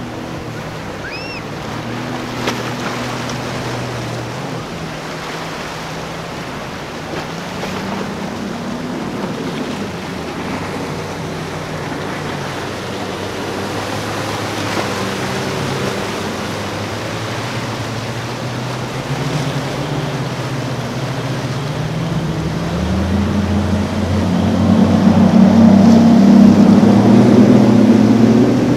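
Outboard motors of center-console boats running at speed through choppy inlet water, over the wash of waves and wind. The engine pitch rises and falls as boats go by, and it is loudest near the end as a boat with twin outboards passes close.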